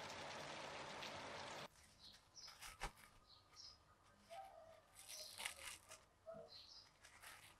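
Heavy rain falling steadily, cut off sharply about one and a half seconds in; then quiet crinkling and rustling of plastic cling film being peeled off a loaf cake, with louder crackles about five seconds in and again near the end.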